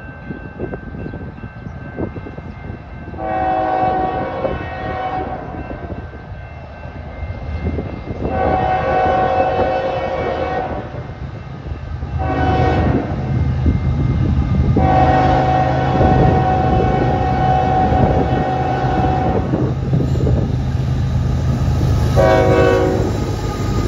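Diesel freight locomotive horn, a multi-note chord, sounding the grade-crossing signal as the train approaches: two long blasts, a short one, then a longer one. About 22 seconds in comes a short toot, a friendly horn tap, as the lead locomotive passes. The rumble of the locomotives' diesel engines and the train's wheels builds underneath.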